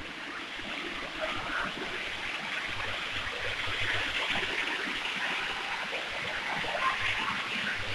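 Steady rush of running water from a small stream or waterfall feeding a garden pond.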